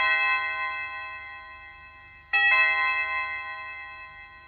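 Electronic doorbell playing a church-bell chime tone: two bell strikes about two and a half seconds apart, each ringing out in several steady tones and slowly fading with a lot of reverb.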